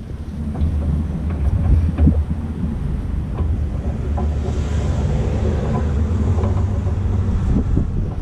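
Wind buffeting the camera microphone: a steady low rumble, with a few small clicks and knocks from hands working at the bucket.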